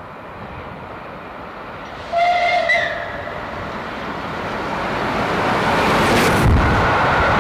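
Steam locomotive 35028 Clan Line, a rebuilt Bulleid Merchant Navy class Pacific, sounds a short whistle blast about two seconds in. Its rushing running noise then grows louder as it approaches at speed, peaking with a loud rush as it passes beneath about six seconds in.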